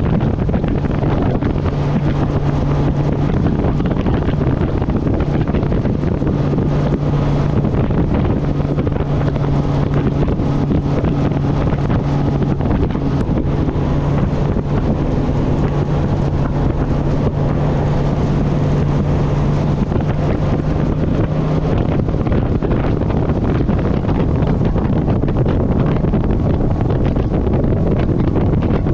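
Heavy wind rushing over the microphone of a bass boat running at speed, with the outboard motor's steady low drone underneath. The motor's drone drops out of hearing about three-quarters of the way through while the wind noise carries on.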